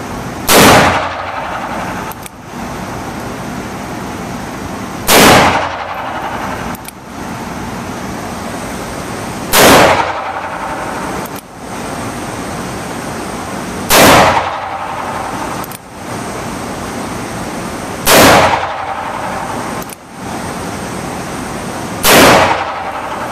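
.44 Magnum revolver fired six times, one loud shot every four seconds or so, over a steady background hum.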